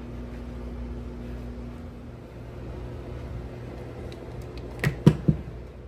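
A steady mechanical hum from a running appliance, with a few light clicks and then three sharp knocks about five seconds in.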